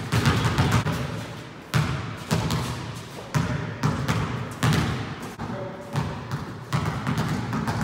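Basketball being dribbled on an indoor court floor, giving sharp bounces at an uneven pace of roughly one a second, each fading out slowly in the hall.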